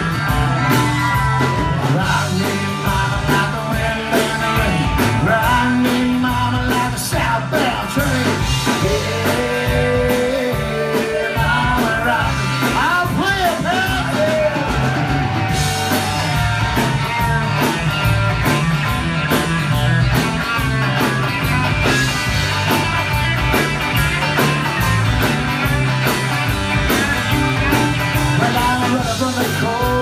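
Live band playing amplified rock, with drums keeping a steady beat, guitars and a banjo, and singing over it.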